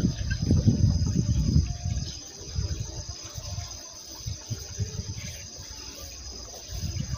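Insects chirring steadily in two high, even tones. Low rumbling is loud for the first two seconds, then fades to a faint rumble.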